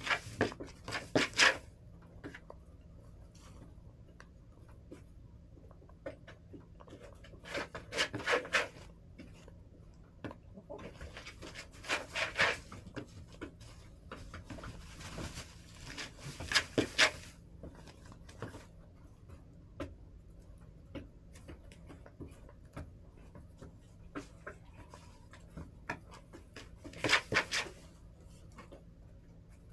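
Backyard hens in the coop: five short bursts of rapid clicky pecking and scratching sounds a few seconds apart, over a low steady background.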